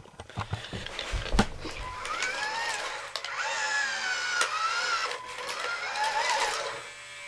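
Remote-control toy Jeep's small electric motor and gears whirring as it drives, the pitch rising and falling, after a few knocks and thumps in the first two seconds.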